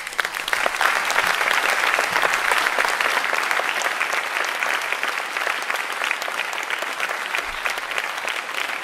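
An audience applauding: the clapping breaks out suddenly and goes on steadily.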